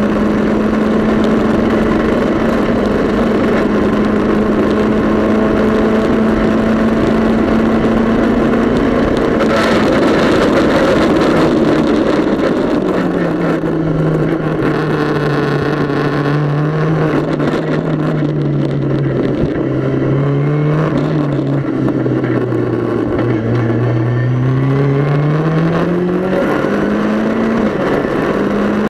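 Mitjet race car engine heard from inside the cockpit, held at a steady high pitch for about ten seconds, then dropping lower and rising and falling as the car slows and accelerates, climbing again near the end.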